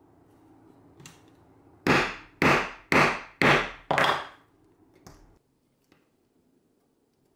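Mallet striking a hole punch held upright on a leather strap over a wooden board: five sharp blows about half a second apart.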